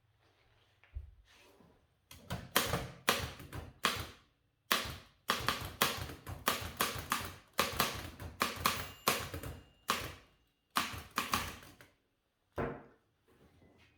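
Typewriter typebars striking the platen as keys are pressed, about three sharp clacks a second with a couple of short pauses. The run stops, then one last strike follows.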